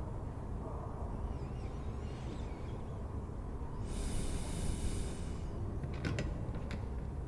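Layered library ambience: a steady low rumble, a soft rush of hiss lasting about a second and a half from about four seconds in, and a few quick clicks near the end.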